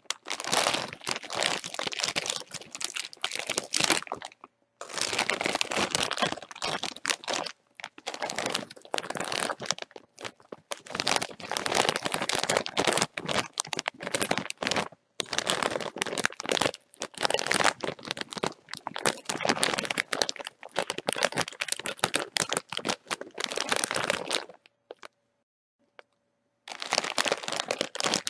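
A bag of chips being crinkled by hand, with dense plastic crackling in bursts of one to a few seconds and short pauses between, and a gap of about two seconds near the end.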